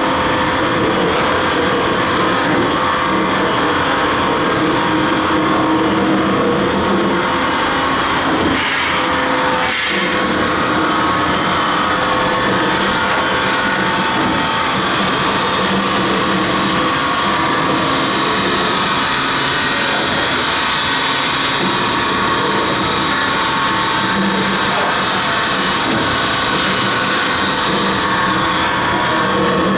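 Industrial automatic knife grinding machine running steadily: a loud, even machine noise with a steady hum and a higher whine.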